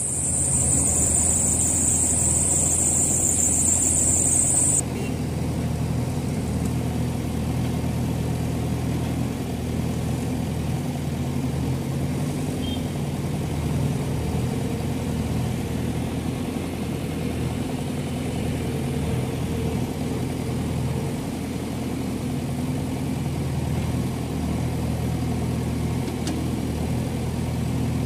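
Diesel engines of JCB 3DX backhoe loaders running steadily while digging. For the first five seconds a loud high hiss lies over them and cuts off suddenly.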